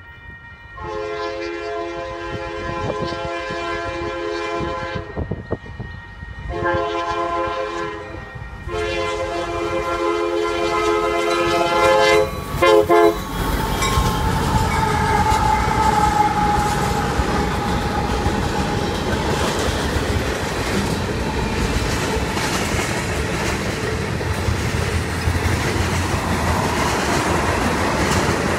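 Freight locomotive's multi-tone air horn sounding for a grade crossing: three blasts, the second shorter, then a quick short one. The diesel locomotive then passes close by, and a string of tank cars rolls past with steady wheel clatter.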